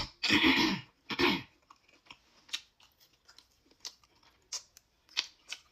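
A person eating on camera: two harsh coughs in the first second and a half, then sparse wet mouth-smacking and chewing clicks.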